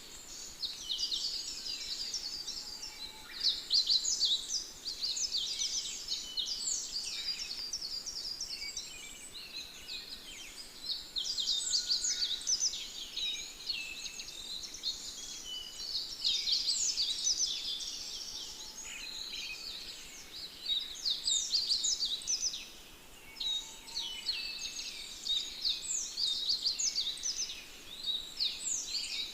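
A chorus of many small birds chirping, with short overlapping calls all through and louder bursts every few seconds.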